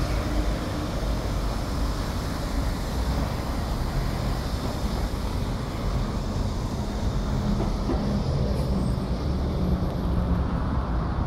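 Steady low rumble of road traffic with a constant background hiss.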